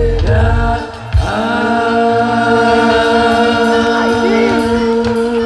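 Sholawat devotional song: a male voice sings the word "perbedaan", then a long steady note is held over the backing music.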